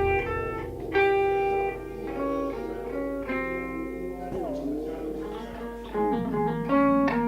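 Instrumental post-punk passage with no vocals: a guitar picks a run of single notes. About halfway through, one note bends and slides down in pitch.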